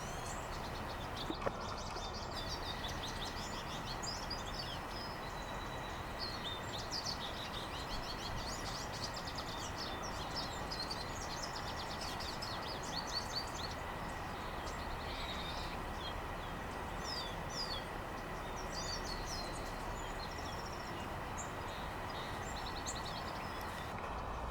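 Small songbirds chirping and trilling on and off over a steady hum of background noise.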